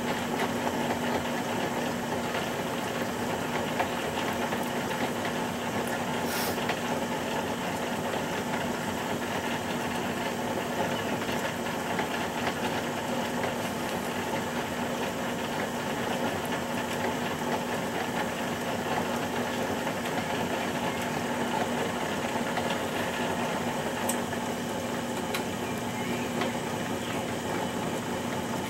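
Potter's wheel motor running at a steady speed, a constant hum with a steady tone under an even mechanical noise while clay is shaped on the wheel head.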